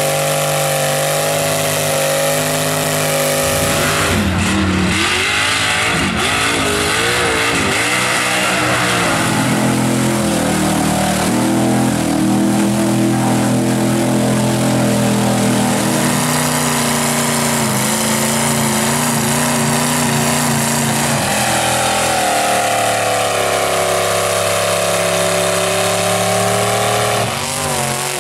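Engines of lifted mud trucks on tractor tires running at high revs while churning through deep mud, the pitch rising and falling with the throttle. Near the end a different engine takes over.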